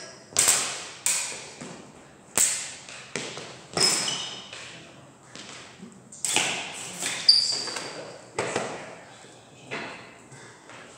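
Smallsword blades striking and beating against each other: a series of sharp metallic clicks and pings, about one a second, some ringing briefly, the loudest about seven seconds in. Each hit echoes in a large hard-floored hall.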